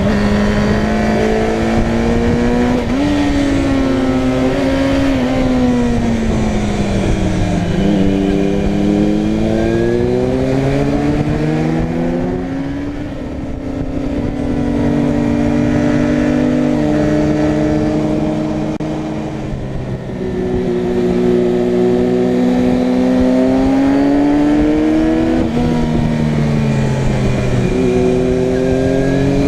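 Motorcycle engine under way, its pitch climbing as it accelerates and dropping back at each gear change, over steady wind rush.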